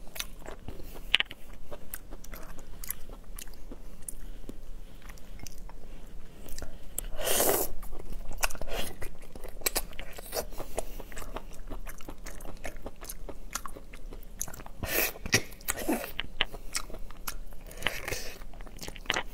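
Close-up biting and chewing of split slipper lobster halves: many small crunches and wet chewing, with a few louder bites about seven, fifteen and eighteen seconds in.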